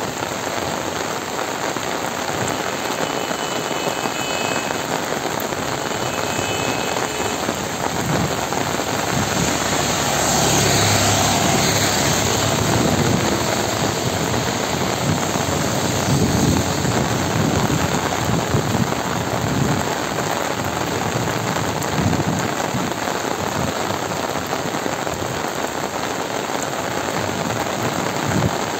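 Heavy rain falling steadily, a dense even hiss of drops hitting the ground and surfaces, with a louder rushing swell about ten seconds in.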